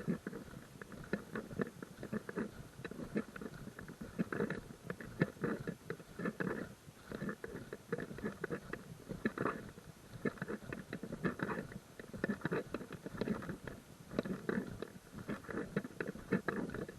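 Footsteps crunching on a gravel trail at a steady walking pace, about one step a second.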